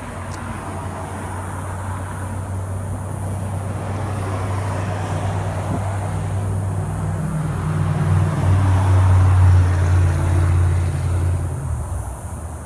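Dodge Challenger V6 with resonators deleted and Magnaflow mufflers driving past: a low exhaust drone that builds steadily, is loudest about nine to ten seconds in, then drops away near the end.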